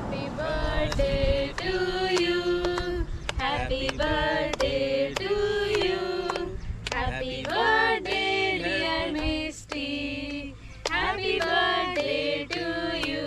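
Women's voices singing together in held, wavering notes, with hands clapping.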